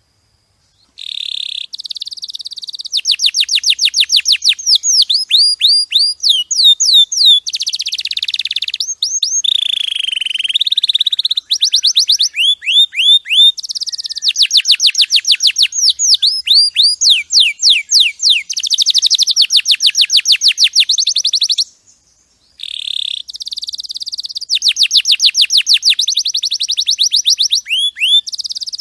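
Domestic canary singing a long song of rapid trills: fast runs of repeated falling whistled notes that change speed and pitch from phrase to phrase. There is a brief pause about a second in and another around two-thirds of the way through.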